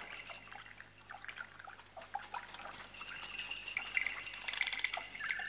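Quiet scattered drips and small clicks of water. A thin, high, steady tone comes in about three seconds in, with quick light ticks over it near the end.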